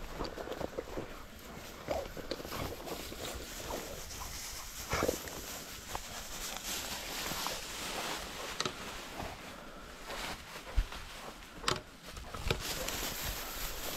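Footsteps and rustling through field cover, irregular, with a few sharper snaps.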